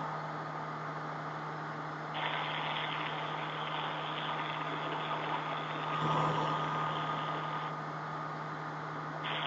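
Turbocharged Viking 180 aircraft engine and propeller droning steadily in flight, heard inside the Zenith 750 SD cockpit. A higher hiss comes in about two seconds in and drops out near the end.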